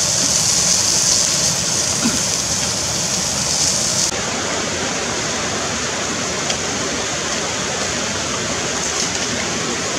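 Steady rushing noise like flowing water. It turns suddenly duller, losing its hiss, about four seconds in.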